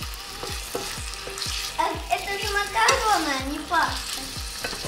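Diced chicken fillet sizzling in a frying pan while it is stirred with a wooden spatula. Background music with a steady low beat plays under it, and a melodic line comes in about two seconds in.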